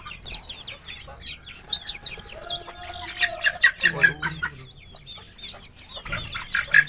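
Young bantam and English Game chicks peeping rapidly and continuously, many short high calls overlapping, while they are handled in and around a wire cage. A lower drawn-out call sounds briefly near the middle.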